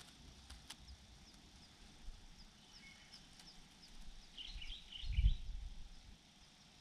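Faint high bird chirps: a run of quick, evenly spaced short notes, then a tighter cluster of chirps about four to five seconds in. Under them a low rumble swells into a dull thud about five seconds in, the loudest sound here.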